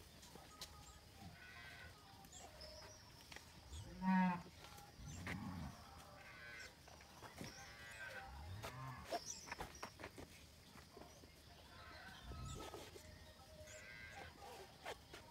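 Cattle mooing several times, the loudest call about four seconds in, with faint clicks and rustles of saddle tack being fastened on a mule.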